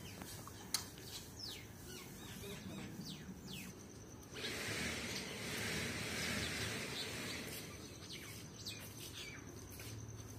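Small birds chirping outdoors with many short, quick calls. About four seconds in, a louder hiss rises for some three seconds and then fades, while the chirping carries on.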